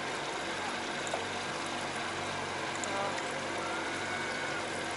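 Steady rushing water noise around a boat on a lake, with a few faint tones over it.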